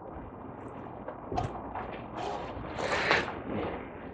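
Light knocks and scrapes of a removed car front valance being handled and carried away, with footsteps on a concrete floor; a sharper knock about a second and a half in.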